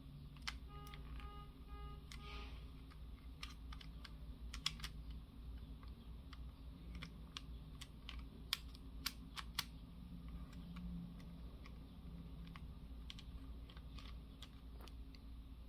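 Plastic model-kit pieces of a Bandai Ultimagear Millennium Puzzle being handled and pushed into a slot, making scattered light clicks and taps.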